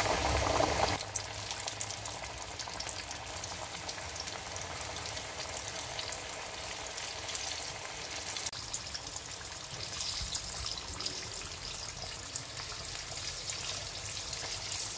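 Flour-battered chicken breast deep-frying in hot oil in a wok: a steady sizzle full of fine crackles.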